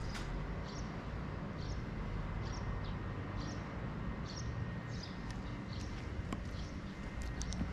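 Short high chirps from a small creature, repeating about once a second over a steady low rumble, with a few sharp ticks near the end.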